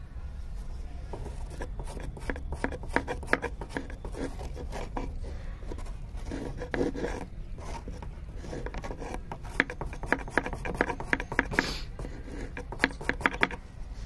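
A thin wooden stick scraping and rubbing sulphur powder across the weathered wooden entrance board of a beehive. The strokes are quick, irregular and scratchy, and come in clusters from about a second in.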